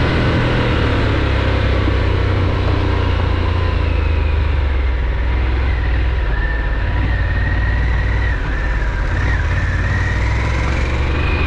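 Harley-Davidson Pan America's 1250 cc V-twin engine running steadily. A thin, wavering whine comes in about halfway through.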